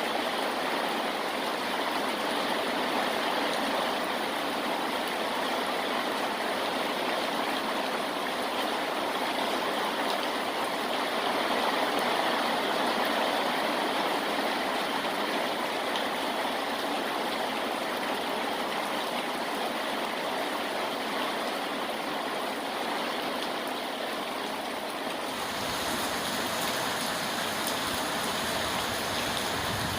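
Steady rainfall, an even hiss of falling rain. A little before the end it shifts, taking on a fuller low rumble.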